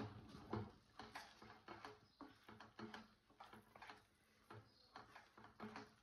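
Faint, uneven scrapes and soft knocks of a wooden spatula stirring thick tomato thokku paste in a non-stick kadai, about two strokes a second.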